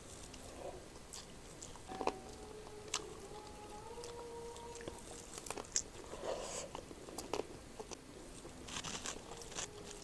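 Close-up eating sounds: chewing and crunching of food, with scattered small clicks and smacks.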